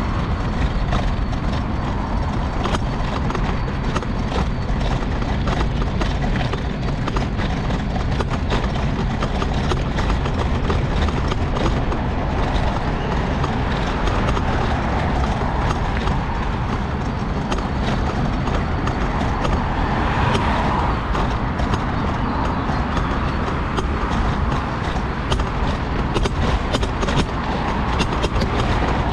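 Mobility scooter on the move: a steady rumble with many small clicks and rattles from the ride, and road traffic passing alongside.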